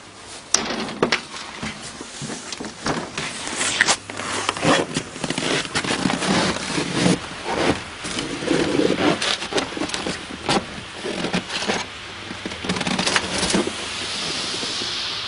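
Close handling noise: a winter coat rustling and many knocks and scrapes against the camera while the person moves about and throws the water. Near the end a steady hiss takes over.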